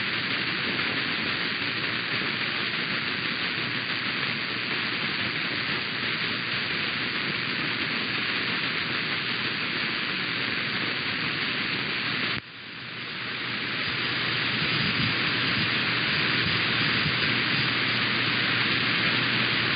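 Steady hiss of radio static from a receiver with no program audio. The static drops suddenly about twelve seconds in and creeps back up over the next couple of seconds.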